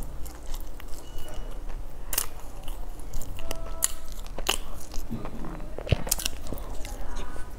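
Close-miked mouth sounds of someone chewing and biting into a crusty bun, with irregular sharp crunches of the crust.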